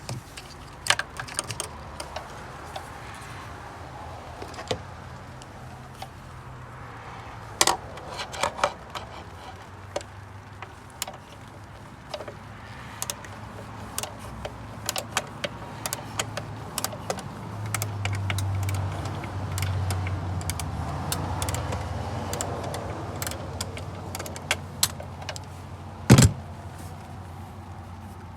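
Irregular metallic clicks and clinks of hand tools and parts being handled during engine work, over a steady low hum. There is one sharper knock near the end.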